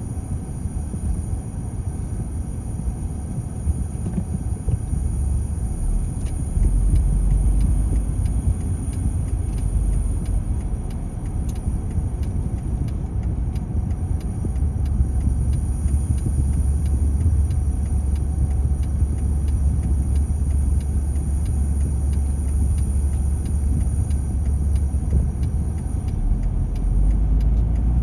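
Low road and engine rumble of a car in city traffic, heard from inside the cabin. It starts light while the car waits at a light and grows heavier as the car moves off and drives on.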